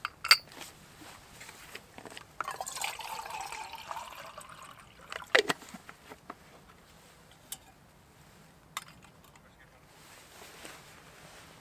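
Camping-stove kit being set up: sharp metal clicks and clinks as the pot stand goes onto a brass spirit burner and a titanium mug is set on top, the loudest just after the start. About two and a half seconds in, liquid trickles and pours for roughly two seconds.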